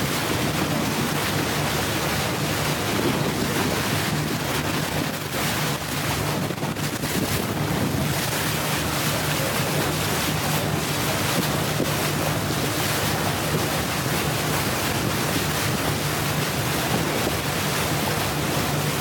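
Motorboat under way at speed: the engine's steady low drone under the rush of water along the hull and wind buffeting the microphone.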